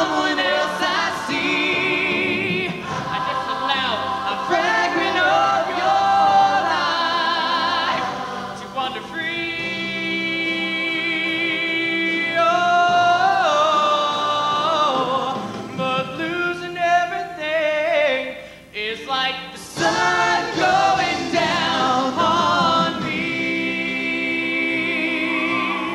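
Mixed show choir singing a ballad in full harmony with two male soloists, on long held chords with vibrato. The level dips briefly about two-thirds of the way through.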